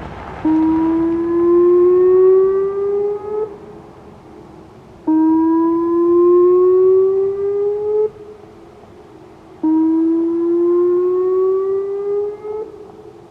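Whelen 2906 electronic outdoor warning siren sounding its test signal: three loud rising tones, each about three seconds long, gliding upward in pitch and then cutting off abruptly, with short quieter gaps between them.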